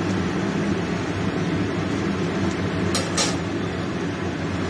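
Steady low kitchen hum and hiss, with a spatula scraping or knocking the aluminium wok twice about three seconds in as the noodles are stir-fried.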